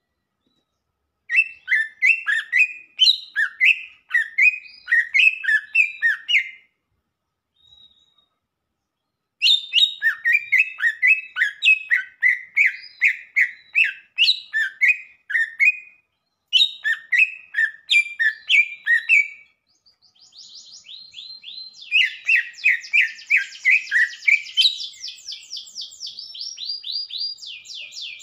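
Leafbird (cucak ijo) singing in long phrases of quick, repeated chirping notes, broken by pauses of a few seconds. In the last third it switches to a faster, buzzier run of notes.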